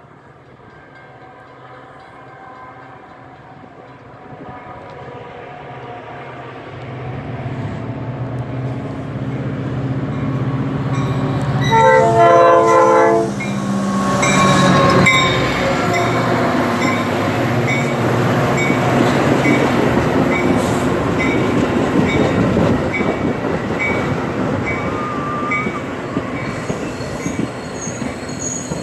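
Metra commuter train approaching, its rumble growing steadily louder. Its locomotive horn sounds one loud chord about a second and a half long near the middle. Then the train rolls in with a heavy rumble and wheel noise, and a bell rings about once a second.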